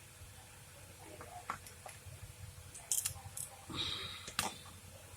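Faint scattered clicks and taps of small hand tools on a mobile phone's circuit board, with a brief scrape near the end.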